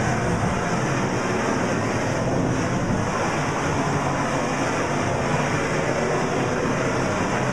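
Propane shrink-wrap heat gun running with a steady, loud rushing noise of its flame as the shrink-wrap film is heated.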